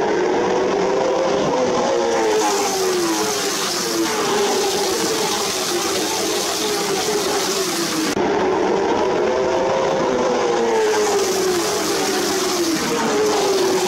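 A pack of late model stock car V8 engines racing past at full throttle. Their overlapping pitches sweep down and back up as the cars brake into the turn and accelerate out. The sound changes abruptly about eight seconds in.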